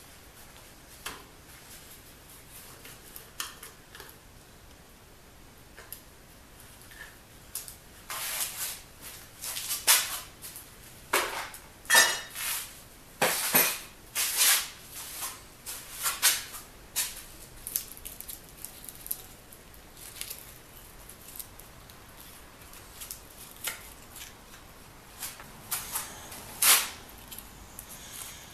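Scattered metal clinks and clatters of tools and parts being handled during work on a bandsaw motor: a few at first, a busy run in the middle, and a few more near the end.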